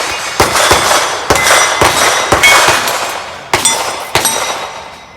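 A rapid string of about seven .22 rimfire revolver shots from a Smith & Wesson 617, each followed by the ring of a hit steel plate, with a short pause near the middle.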